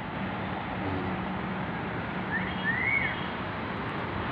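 Steady city ambience: the hiss and rumble of distant traffic with wind on the phone microphone, and a few short high chirps about halfway through.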